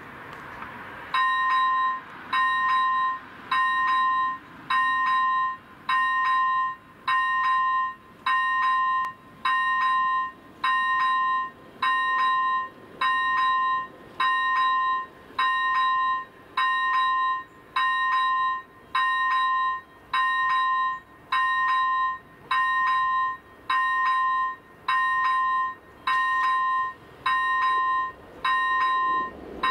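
Railway level-crossing warning bell, set off as the crossing activates for an approaching train, ringing a steady clear ding about once a second. It starts about a second in and keeps an even beat throughout.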